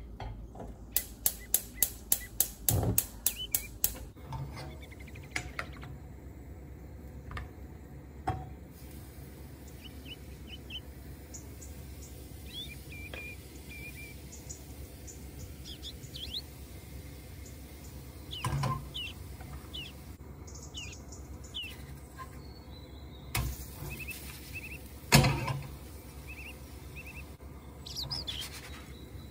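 Gas hob's spark igniter clicking rapidly, about four clicks a second for some three seconds near the start. Later a few knocks of the frying pan against the hob, the loudest near the end, with small bird chirps in between.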